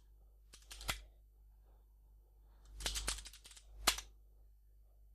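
Computer keyboard keys being typed in short bursts: a few keystrokes about a second in, a quick run around three seconds, then a single louder keystroke just before four seconds.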